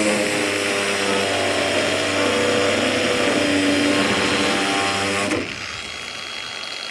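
Power tool with a cutting wheel running under load as it cuts through the steel wire of a hog-wire panel, its pitch wavering. It stops abruptly about five and a half seconds in.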